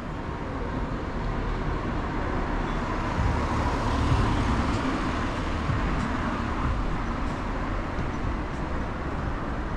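A car driving past on the street, loudest about four seconds in, over steady city traffic noise.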